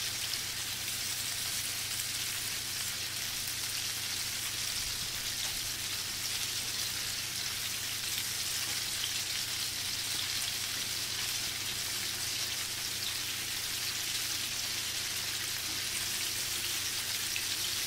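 Flour-coated chicken nuggets deep-frying in oil in a kadhai over a medium flame: a steady, even sizzle with fine crackling.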